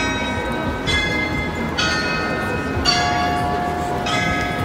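The carillon bells of the Glockenspiel in Munich's New Town Hall tower are playing a slow tune. About one bell note sounds each second, each at a different pitch and each ringing on into the next.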